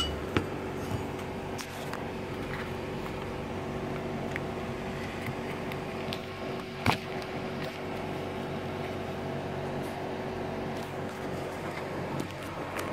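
Steady mechanical hum with a few sharp clicks and knocks, the loudest about half a second in and about seven seconds in.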